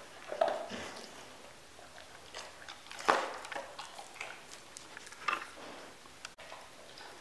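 Golden retriever puppy nosing into a rolled fleece blanket for hidden treats: scattered sniffing, fabric rustling and chewing, with a few sharp clicks, the loudest about three seconds in.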